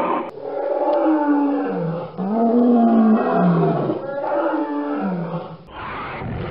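Dinosaur-style roar sound effects: three long roars one after another, each sliding down in pitch at its end, then a rougher, noisier sound near the end.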